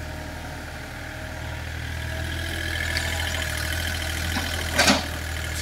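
Mini excavator's diesel engine running steadily, with a whine building from the hydraulics as the arm lifts a bucket of soil, and one short, loud clank near the end.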